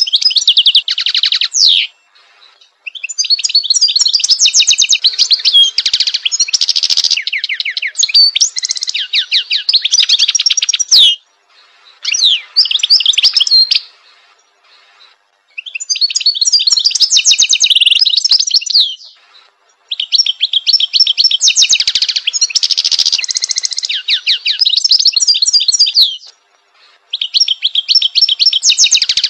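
European goldfinch singing: fast, twittering phrases a few seconds long, about six of them, each separated by a short pause.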